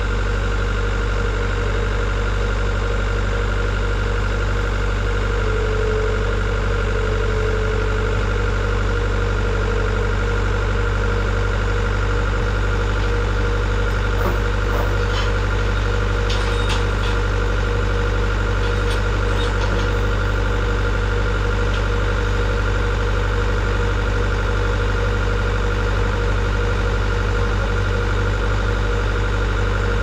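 An engine running steadily at an unchanging speed, with a few light clicks about halfway through.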